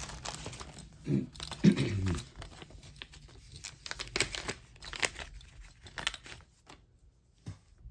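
Small clear plastic zip-top bag crinkling and rustling in the hands as it is opened and a ring and paper note are pulled out: a run of crackles and soft ticks. There is a brief mumbled voice about a second in.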